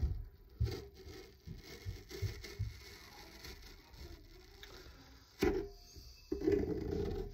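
Metal spoon scraping gel out of an aloe leaf on a plastic cutting board: soft, irregular scrapes and small taps. A sharp click about five seconds in, and a louder muffled rubbing near the end.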